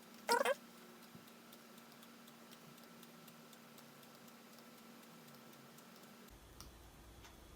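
Faint computer mouse or trackpad clicks while clips are selected and adjusted one after another, preceded by a brief squeak about half a second in.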